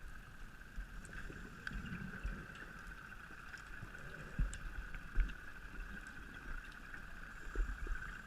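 Muffled sound recorded by a diver's camera in its underwater housing: a steady high hum with scattered low knocks and bumps, the loudest a few seconds in and again near the end.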